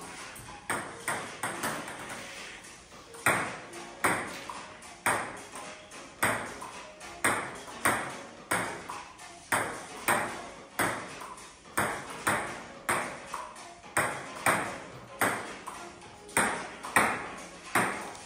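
Table tennis rally: the celluloid ball clicking off the paddles and bouncing on a Donic Indoor Roller 800 table, each hit sharp with a short ring. The hits are soft and scattered for the first few seconds, then come steadily at about two a second.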